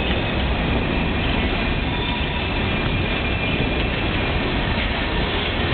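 Coal train's hopper cars rolling past close by: a steady, loud rumble of steel wheels on the rails.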